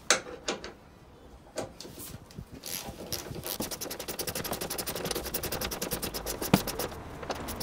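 A socket ratchet driving a T50 Torx bit clicks in a fast, even run as it turns a tailgate hinge bolt, starting about two and a half seconds in. Before that there are a few scrapes and knocks as the bit is forced onto the paint-clogged bolt head.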